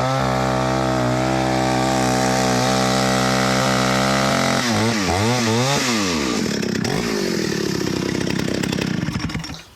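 Stihl 051 AVE 89 cc two-stroke chainsaw running at high, steady revs through a test cut in red oak. About four and a half seconds in, the revs swing sharply down and up a few times as the throttle is worked, then fall away, and the engine is shut off near the end.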